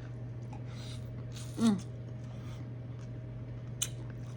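Eating sounds, with a short burp falling in pitch about one and a half seconds in as the loudest sound, and a sharp click near the end, over a steady low hum.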